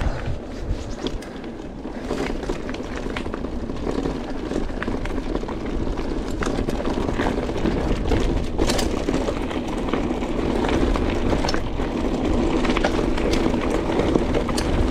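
Mountain bike descending a stony gravel track: tyres rolling and crunching over loose stones, with frequent sharp rattles and clicks from the bike. It gets gradually louder over the first several seconds as the bike gathers speed.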